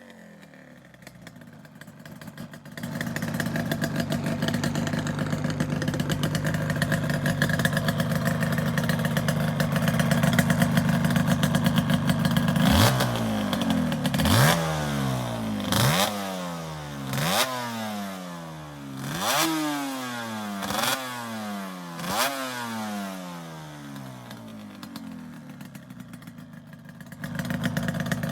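Yamaha RZ250R's two-stroke parallel-twin engine breathing through a carbon-clogged silencer. It is held at a steady raised speed for about ten seconds, then blipped about seven times, each blip opening with a sharp crack and the revs falling away between. The sharp, firecracker-like note comes from carbon built up in the silencer.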